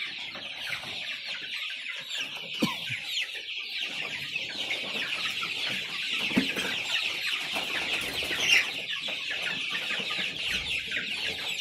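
A large flock of young chickens peeping together in a continuous chorus of short, high, falling cheeps, with one louder call about eight and a half seconds in.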